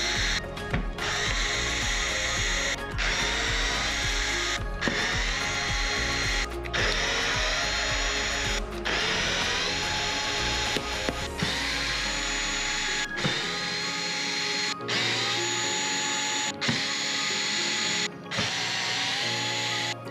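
Handheld electric screwdriver with a T15 Torx bit spinning in short runs, broken by brief pauses about every two seconds, as it backs out the screws holding a car's front splitter. In the second half each run starts with a short rising whine.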